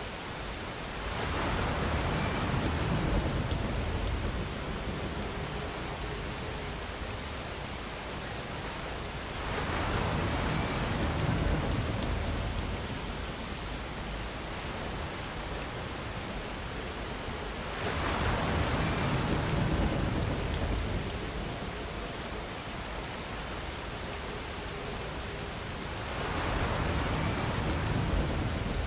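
Steady rain hiss with distant thunder rumbling up and fading away four times, at roughly even intervals of about eight seconds.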